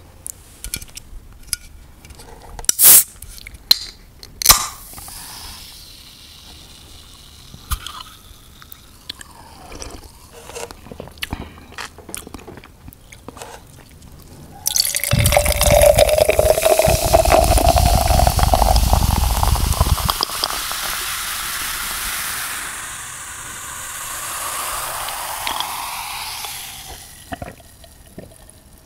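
Light taps and clicks from handling a metal energy drink can, with a couple of sharp louder clicks. About halfway through, the drink is poured from the can into a glass mason jar: a sudden gushing pour whose tone rises as the jar fills, then a lighter hiss that fades away near the end.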